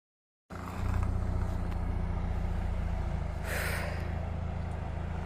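Off-road vehicle's engine idling steadily with a low rumble. It cuts in abruptly about half a second in, and there is a brief hiss about three and a half seconds in.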